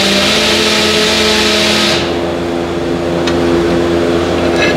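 A steady mechanical hum of several even tones, with a loud hiss over it that cuts off about two seconds in.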